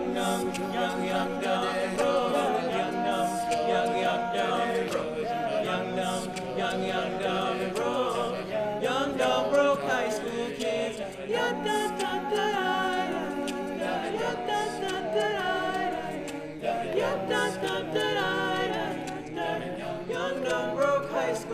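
Male a cappella group of teenage voices singing a pop song arrangement in harmony, with no instruments.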